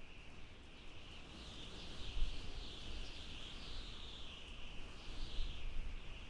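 Outdoor nature ambience: a steady high-pitched chorus that swells and fades, over a low rumble that comes and goes.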